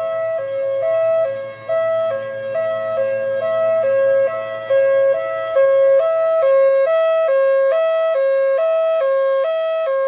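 Federal Signal Thunderbolt 1003 mechanical outdoor warning siren sounding its hi-lo fire signal, alternating rapidly between two pitches. The level swells and dips throughout.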